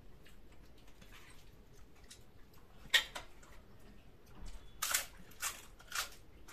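Crisp papad snapping and crunching between the teeth: one sharp crack about three seconds in, then three crunching bites in quick succession near the end.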